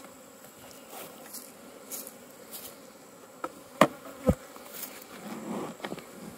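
Honey bees buzzing around an open hive, a steady hum that swells briefly near the end. A little under four seconds in come two sharp knocks about half a second apart, the loudest sounds, as the wooden hive parts are handled.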